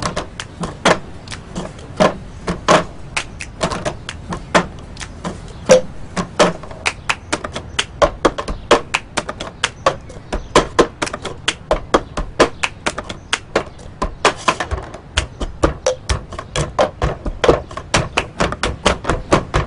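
Cups tapped, slapped and knocked on a tabletop in the cup-game rhythm. It is a quick run of sharp clicks and thuds that grows busier about halfway through.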